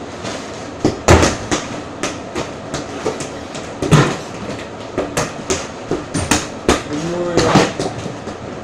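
Irregular thumps and knocks, the loudest about a second in and about four seconds in, from a person tossing and catching a rubber ball and moving about close to the microphone. A brief voiced sound comes near the end.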